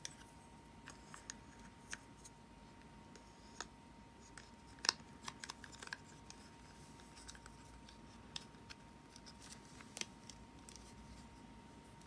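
Scattered light clicks, snips and taps of hands working on a boxed prize figure's packaging, the sharpest about five seconds in, over a faint steady high tone.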